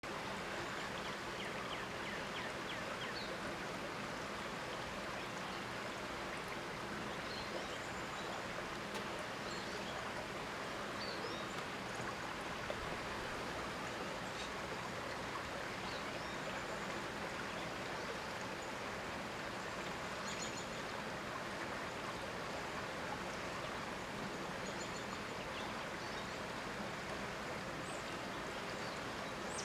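Steady rush of flowing river water, with faint short high chirps now and then.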